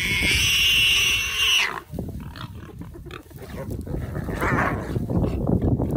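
A warthog squealing as a leopard seizes it: one long, high-pitched scream that cuts off suddenly just under two seconds in. It is followed by rougher, irregular animal noises at a lower level.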